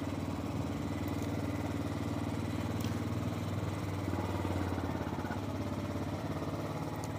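Motorcycle engine running steadily while the bike rides along, heard from on the bike: a low, even engine note that shifts slightly about four seconds in.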